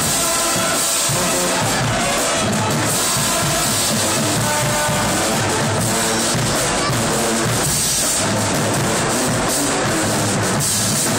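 Marching band playing loudly: brass with tuba and a pounding bass drum and drum line, recorded close on a phone so the sound is heavily compressed.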